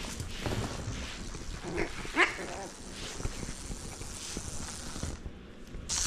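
A small dog gives two short rising yips about two seconds in, over light clicks and taps of paws and a toy ball on a wooden floor.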